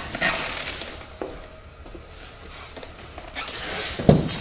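Styrofoam packing and a cardboard box rubbing and scraping as a mitre saw's motor assembly is worked loose and lifted out of the foam. The sound is loudest in the last second, with a knock just before the end.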